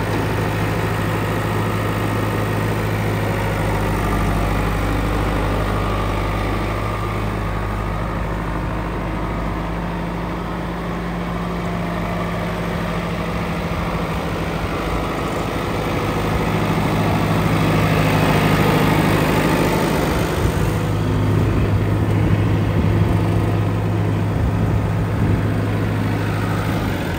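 John Deere 2755 tractor's four-cylinder diesel engine idling steadily, growing somewhat louder in the second half.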